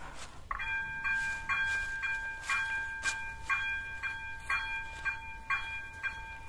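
Electronic level-crossing bell (type 02) switching on about half a second in and ringing steadily at about two strikes a second. It is the crossing's warning that a train is approaching.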